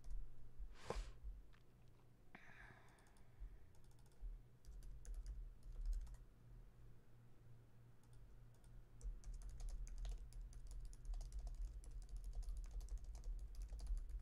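Typing on a computer keyboard: a few scattered key clicks, then a quick, steady run of typing over the last five seconds or so, over a low steady hum. A short rush of noise comes about a second in.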